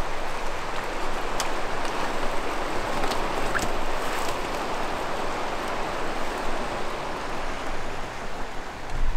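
Swollen, fast-flowing river rushing past the bank as a steady, even roar of water.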